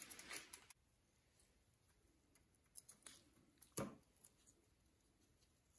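Near silence with a few faint metallic clicks of a KMC 9-speed bicycle chain being handled at its master link, the sharpest about four seconds in.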